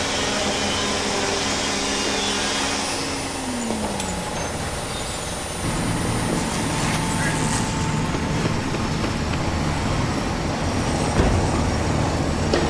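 Heavy engine or machinery running steadily. A low tone drops in pitch about three and a half seconds in, and a different low hum sets in about six seconds in.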